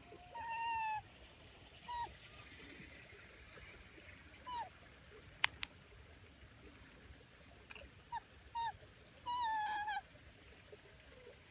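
A series of short, high animal calls, most dropping in pitch at the end, with longer drawn-out calls near the start and near the end and a quick pair a little before the last. Two sharp clicks come close together about halfway through.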